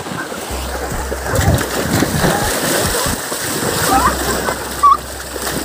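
Water splashing as people run and dive through shallow, flowing floodwater. Short shouts come about four to five seconds in.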